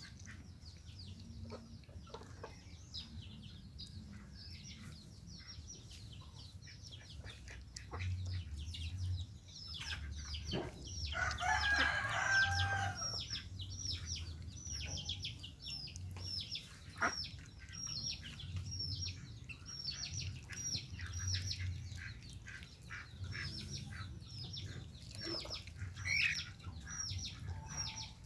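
Birds calling: quick, high, falling chirps repeat about twice a second, and a louder, drawn-out call stands out from about 11 to 13 seconds in.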